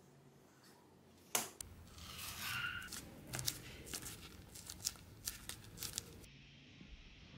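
Leather being handled and pressed by hand around a dagger scabbard. A sharp tap comes about a second in, then rustling and creaking with a brief squeak, then a run of small crackles and clicks that cuts off abruptly about six seconds in.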